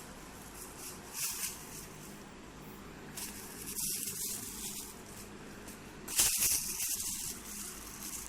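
Plastic crinkling and rustling as a kitten plays with it, in three bursts, the loudest near the end.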